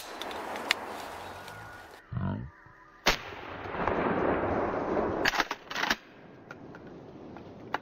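A single shotgun shot about three seconds in, followed by a couple of seconds of rustling noise and two more sharp knocks.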